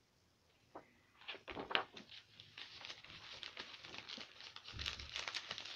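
Crinkling and rustling of packaging being handled, made up of irregular crackles and small clicks that start about a second in.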